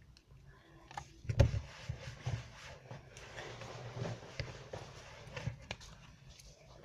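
Spoon stirring and scraping slime in a bowl: soft, uneven handling noises with scattered light clicks and one knock about a second and a half in.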